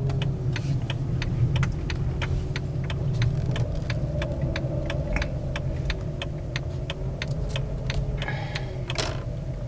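A car running, with a steady low rumble and a faint wavering hum, and many light clicks and ticks over it.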